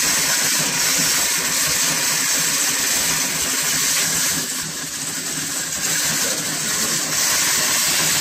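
Countertop blender running, its motor whirring and the blade churning a carbonated mix of Mountain Dew and sour candies; very loud and steady, easing slightly for a moment around the middle.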